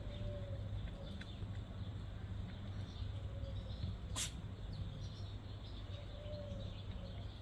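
Quiet outdoor ambience: faint bird chirps over a steady low hum, with one sharp click about four seconds in.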